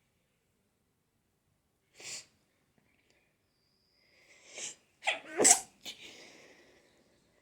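A person sneezing in an allergy sneezing fit. A short sharp breath comes about two seconds in, then a building intake of breath, and about five seconds in one loud sneeze followed by a fading breath out.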